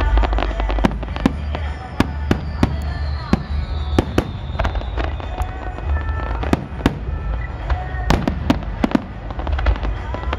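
Aerial fireworks display: shells bursting in a rapid, irregular string of sharp bangs and crackles over a steady low rumble. A long high whistle falls slowly in pitch about two seconds in.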